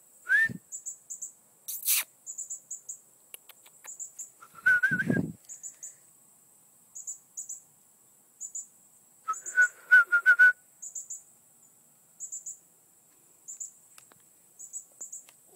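Outdoor birdsong over a steady high-pitched insect chirping. Short whistled bird calls come about half a second in and around five seconds, with a quick run of repeated chirps near ten seconds. There is a sharp click about two seconds in.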